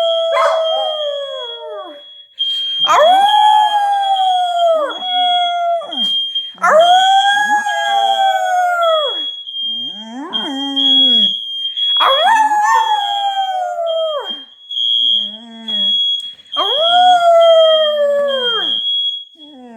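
A dog howling along with a smoke alarm. There are about five long howls, each rising and then sliding down in pitch, with shorter whines between them. The alarm beeps in a steady high-pitched tone underneath and stops near the end.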